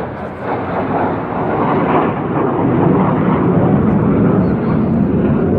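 Military jet flying past, its engine noise a loud, rough rumble that builds over the first few seconds and then holds.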